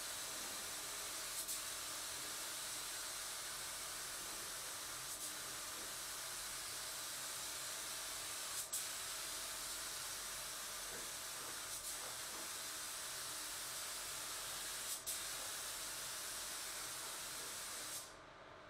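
Compressed-air paint spray gun laying a coat of thinned primer: a steady hiss of atomising air, with a faint click every three to four seconds. The hiss stops near the end.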